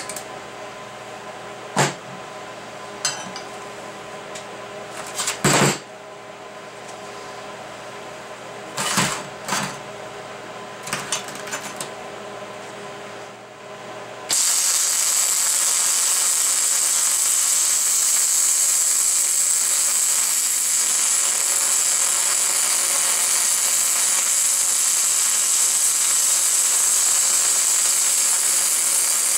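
A few sharp metal knocks over a steady background hum as steel bracket parts are set in place, then about halfway through a MIG welder's arc strikes suddenly and runs with a loud, steady crackle.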